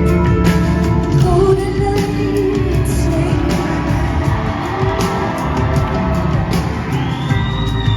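Live band music with a woman singing over drums and bass, the sung line wavering in pitch about a second in, with steady drum strokes throughout.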